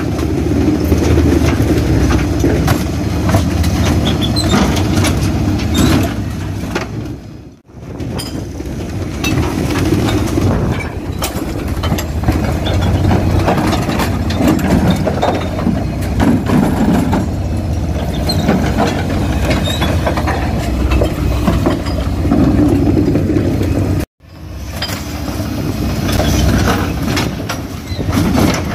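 Faun Rotopress refuse lorry working at the kerb: the engine runs under load and the rear hydraulic bin lifts raise and tip black wheelie bins, with clanking and rattling of bins and rubbish over a steady low hum. The sound cuts out abruptly twice.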